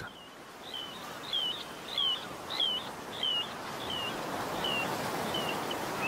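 Male little ringed plover calling while courting at his nest scrape: a series of short, high, down-slurred whistled notes, about two a second, fading toward the end, over a steady wash of background noise.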